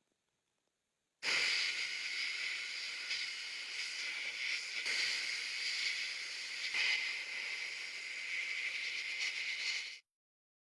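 A steady spraying hiss that starts about a second in and cuts off suddenly near the end.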